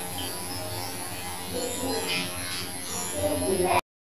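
Battery-operated toy A380 airliner running with a steady electric buzz and hum. The sound cuts off abruptly near the end.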